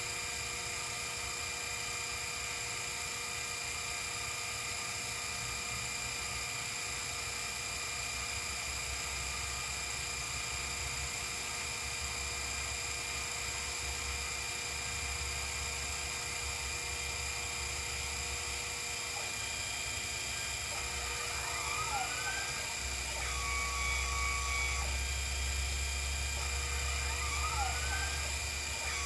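Sherline CNC mill running with a steady whine. Near the end the stepper motors sweep up and down in pitch twice as the axes move, each sweep followed by a short steady tone, while a low hum grows louder.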